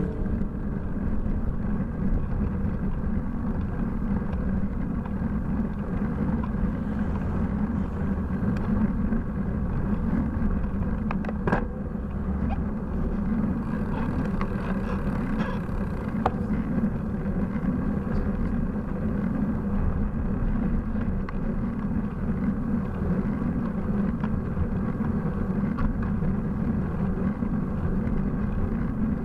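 Steady wind and road noise picked up by a handlebar-mounted bike camera as the bicycle rolls along, with an oncoming car passing about halfway through.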